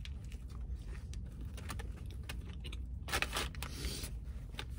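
Close-mic chewing of a Burger King Steakhouse burger with crispy fried onions: small wet mouth clicks and smacks, with a louder noise about three seconds in, over a low steady hum in a car cabin.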